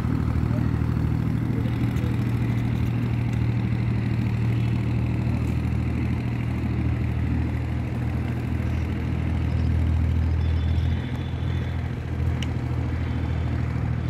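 Small motorboat's engine running steadily as the boat pulls away across the river, a low, even drone that eases a little about eleven seconds in.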